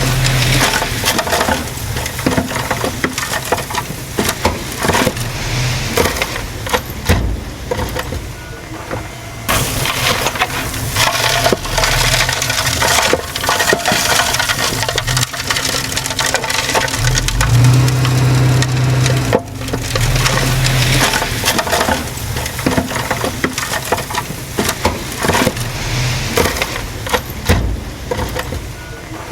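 Komatsu D20P bulldozer at work: its diesel engine running under load beneath continuous crunching, cracking and clattering from the tracks and the soil and debris being pushed. The engine hum comes up more plainly about two-thirds of the way through.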